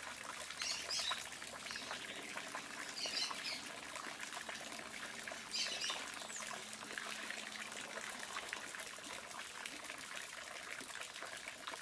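Steady trickling water with short, high bird chirps heard three times.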